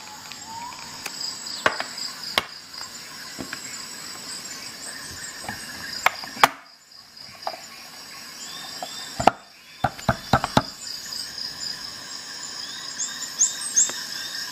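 Hard plastic clicks and knocks as a Facom Rnano socket case is closed and handled, loudest about two-thirds of the way in with a quick cluster just after. A steady high-pitched chirping, like insects, runs underneath.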